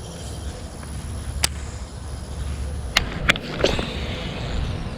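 Wind rumbling on the microphone, with a few sharp clicks from handling a fishing rod and reel during a cast: one about a second and a half in, then three in quick succession near the middle.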